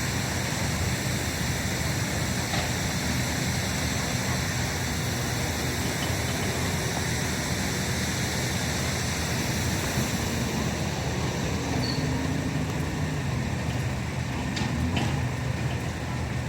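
Steady background noise: a low, engine-like hum under an even hiss, with a couple of faint clicks near the end.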